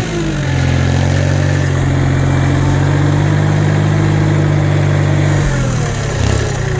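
Tractor engine working under load as the front snow blade pushes into hard-packed, icy snow. The engine note sags right at the start, then holds steady and drops again about five and a half seconds in.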